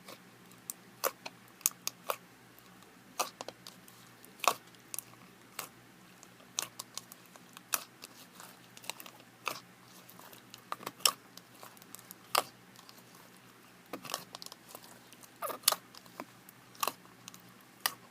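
Bubbly slime being poked and squished in its container, making irregular sharp clicks and pops, a few a second.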